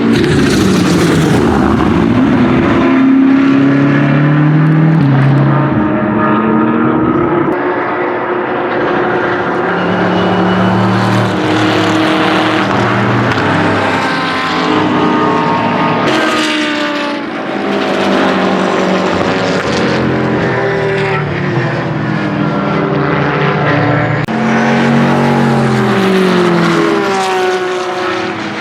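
BMW M6 GT3's twin-turbo V8 racing on track, its pitch climbing and stepping up and down through gear changes and downshifts as it passes, with a second engine note overlapping at times.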